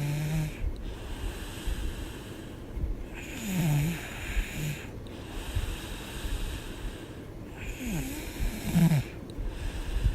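A woman snoring in her sleep, one pitched snore with each breath about every four seconds. The pitch drops during each snore.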